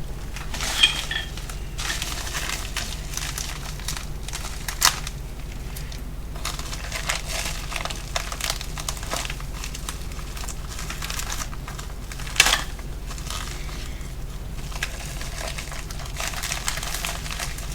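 Product packaging crinkling and rustling as it is handled, with a few sharp snaps, the loudest about twelve seconds in.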